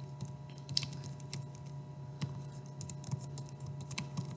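Typing on a computer keyboard: a run of quick, irregular key clicks as a password is entered, over a steady low hum.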